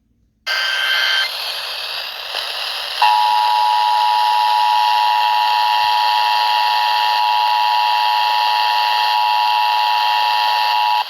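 Emergency Alert System transmission received over the radio, with static hiss throughout: a brief burst of header data about half a second in, then the EAS two-tone attention signal, two steady tones sounding together for about eight seconds. This is the alert signal that comes before a warning message.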